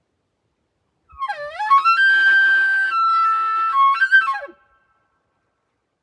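An elk bugle: a few rising notes about a second in climb to a high whistle, which is held and steps down a little in pitch, then ends in a falling glide, about three and a half seconds in all.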